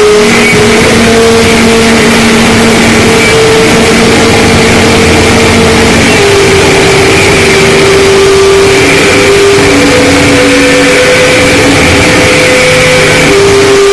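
Harsh noise music: a loud, unbroken wall of distorted noise with held whining tones on top that jump to new pitches every few seconds.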